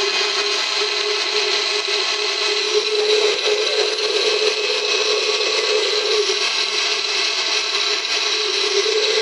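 Electric countertop blender running steadily, blending chopped apples and peanut butter in cinnamon water into a smoothie.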